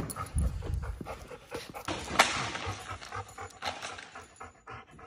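Dog panting as it trots on a concrete floor, its steps clicking and fading out.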